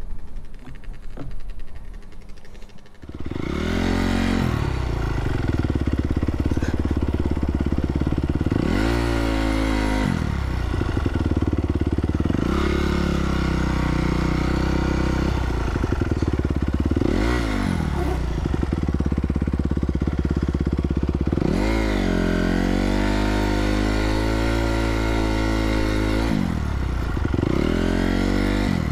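Honda CRF250R's 250 cc single-cylinder four-stroke engine under way on a trail ride: quieter for about the first three seconds, then loud, its pitch climbing and dropping back again and again as the throttle opens and the gears change.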